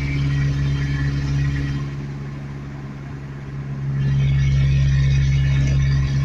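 Truck engine and road noise heard from inside the cab while driving: a steady low drone that eases off for a couple of seconds and comes back louder about four seconds in.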